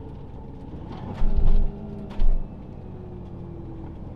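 Motorhome driving slowly round a roundabout, heard from inside the cab: steady engine and road rumble, with two short low thumps about a second and two seconds in. The engine note falls slightly near the end.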